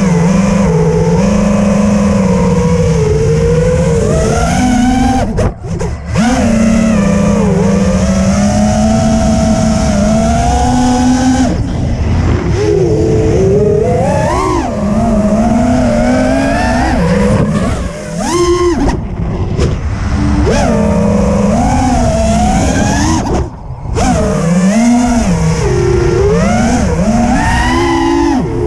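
Freestyle FPV quadcopter's T-motor F40 Pro II motors spinning Azure 5140 propellers in flight, heard from the drone's own camera. It is a loud, buzzing motor whine whose pitch rises and falls constantly with the throttle. It nearly cuts out twice, about 6 seconds in and again near 24 seconds, as the throttle is chopped.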